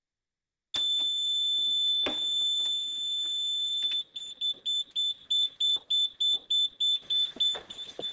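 Gas fire-suppression system's electronic alarm sounder going off as the extinguishant release is triggered on the control panel: a loud, steady high-pitched tone that starts about a second in, then switches to a rapid pulsing beep about three times a second. It signals that the gas release has been activated.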